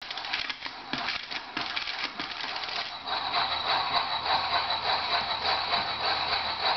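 Tin humming top pumped by its plunger: a dense rattling for about three seconds, then the top spinning with a steady whirring and a thin high tone starting to sound.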